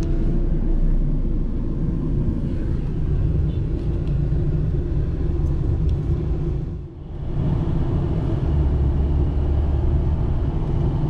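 Steady low rumble of road and engine noise inside a moving car's cabin. It drops away briefly about seven seconds in, then comes back deeper.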